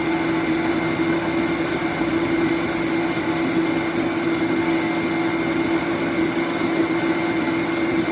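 Countertop blender running steadily with a constant motor hum, puréeing a tomato, pepper, onion and mushroom sauce into a liquid.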